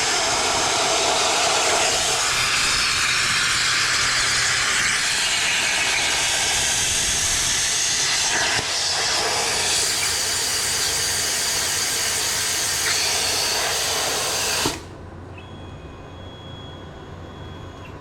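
CNC plasma cutter torch cutting, a loud steady hiss of the arc and its air blast, cutting off suddenly near the end as the cut finishes. A much fainter hum with a thin steady tone remains afterwards.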